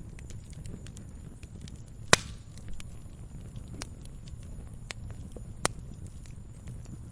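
Campfire crackling steadily with a low rumble of burning wood and many small ticks, and two loud sharp pops from the burning logs, one about two seconds in and another near the end.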